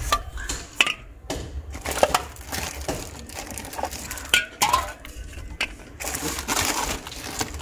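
Full aluminium drink cans set down one after another on a concrete step, each with a short knock or clink, amid the crinkling of a plastic bag being rummaged through. The crinkling thickens for about a second near the end.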